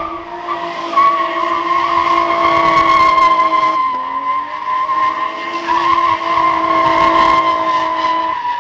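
Nissan R32 Skyline doing donuts: the engine is held high in the revs while the spinning rear tyres squeal. The pitch dips briefly about four seconds in and again near the end, then climbs back.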